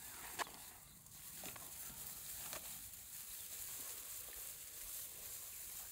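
Faint rustling in grass with a few soft clicks, the sharpest about half a second in, as a puppy noses about in the grass, over a steady hiss.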